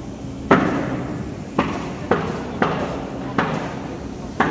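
Six sharp knocks at uneven intervals, each ringing briefly, over a steady low hum from the plasma cutting machine's workshop equipment.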